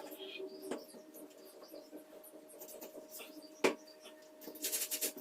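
Faint handling sounds: light scratching with a few sharp clicks, the sharpest about two-thirds of the way in and a cluster of scratchy ticks near the end, over a steady faint hum.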